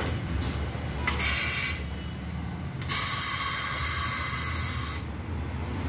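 Compressed air hissing from a pneumatic tyre changing machine, in two bursts: a short one about a second in, then a longer one of about two seconds.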